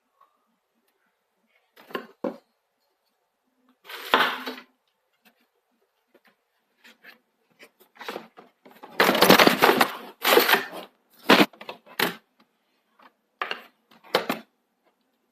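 Handling noises from unboxing a table tennis blade: irregular rustling, scraping and sharp clicks of packaging and wood, loudest from about nine to eleven seconds in.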